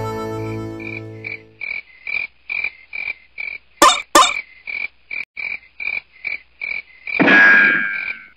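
A held music chord rings out and fades, then frogs croak in a steady rhythm of about three croaks a second. Two sharp clicks come about four seconds in, and a brief noisy swish near the end.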